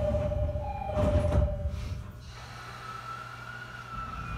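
JR 209 series train at a station stop: the two-tone door chime sounds its last notes, then the doors slide shut with a burst of noise about a second in. A faint electric whine then follows, rising slightly in pitch, over a low hum.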